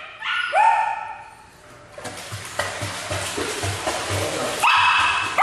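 A dog whines about half a second in, then water splashes for a couple of seconds as the life-jacketed schnauzer paddles in the pool, and high whining starts again near the end.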